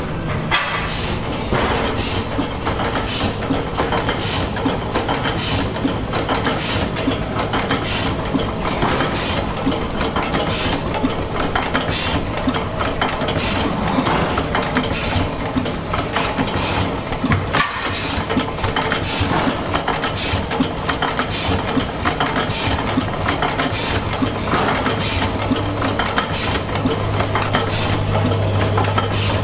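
Several antique stationary gas engines, hit-and-miss types among them, running together. Their firing strokes give sharp, irregular pops, two or three a second, over a steady low hum.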